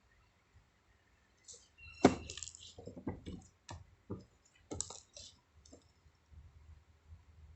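Handling noises from small objects: a scattered run of clicks, light knocks and clinks, with a sharp knock about two seconds in.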